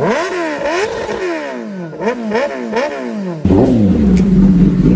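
Kawasaki ZX-10R inline-four revved in a series of quick throttle blips, its pitch jumping up and falling back about five times. About three and a half seconds in the sound switches abruptly to the engine running lower and steadier with a heavy low rumble and a couple of sharp clicks.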